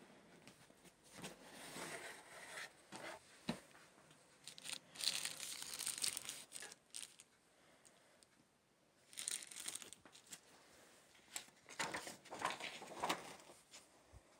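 Clear plastic sleeve on a record box set crinkling and rustling as it is handled and pulled away, in several irregular bursts, with a single light knock about three and a half seconds in.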